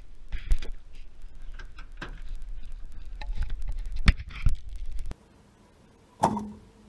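Plastic leaf bags rustling, with scattered knocks and thumps as they are handled and loaded into a pickup truck bed. The noise stops suddenly about five seconds in, and one louder thud with a brief ringing tone follows near the end.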